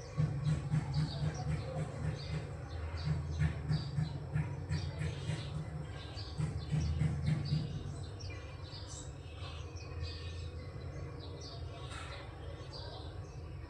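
Cat purring in a low, rhythmic rumble that swells and eases with each breath, softer after about eight seconds, with birds chirping throughout.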